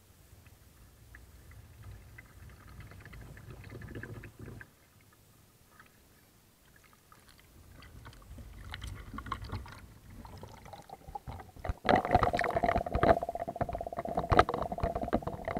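Pool water washing and gurgling over the deck of a sinking LEGO model battleship, a low rumble that swells and fades twice. About twelve seconds in it turns louder and muffled, heard from under the water, with dense crackling and a steady hum.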